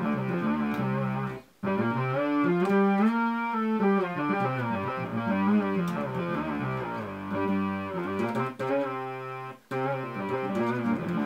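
Electric bass played through a Markbass synth pedal: a run of notes with a keyboardy, 70s-keyboard-like synth tone. The playing stops briefly twice, about a second and a half in and near the end.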